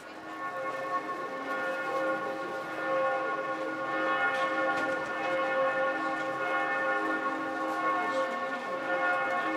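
St. Stephen's Cathedral bells pealing: many bells ringing together and blending into a steady, many-toned wash that swells in over the first second.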